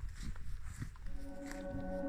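Footsteps over rough ground. About a second in, music with long sustained chords fades in and swells.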